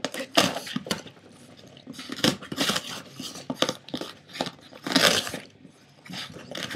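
Boston Terrier chewing and tearing at a cardboard box: irregular crunching and scraping of cardboard, with a louder rip about five seconds in.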